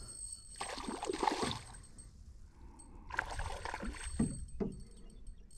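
Hooked trout thrashing at the surface beside the landing net, splashing water in two bursts of a second or so each. A couple of dull knocks follow near the end.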